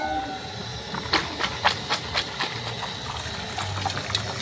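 Aluminium colander and metal bowls clattering as they are handled, a quick run of knocks and clicks, over the steady hiss of a lit gas burner. Near the end, water begins draining through the colander into a plastic bowl.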